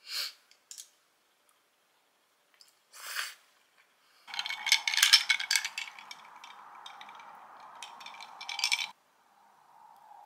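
Ice cubes clinking and rattling in a glass as an iced drink is lifted and drunk, with a steady sipping hiss under the clinks that stops suddenly near the end. Two brief soft eating sounds come before it.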